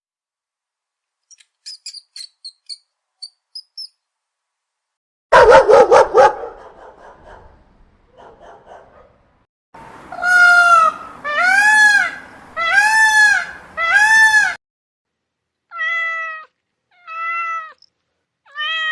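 Domestic cat meowing: four long rising-then-falling meows, then three shorter ones. About five seconds in comes a brief, louder, harsher burst from another animal.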